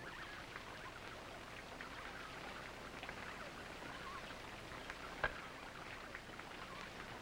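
Faint scattered drip-like ticks, with one sharper click about five seconds in, over a steady low hum.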